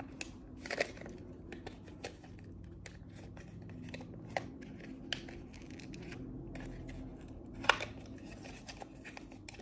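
Hands and long fingernails opening a small torn package: scattered clicks, rustles and crinkles of plastic and paper packaging, with one sharper click late on.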